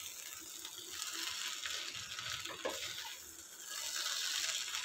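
Fusilli pasta with vegetables and melted cheese sizzling gently in a non-stick pan while a wooden spatula stirs and turns it, with a few soft scrapes and knocks.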